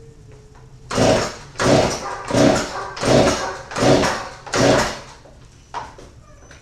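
Stihl MS290 chainsaw with a replacement MS390 engine being pull-started: six quick rasping pulls of the recoil starter cord about three-quarters of a second apart, the engine turning over without settling into running.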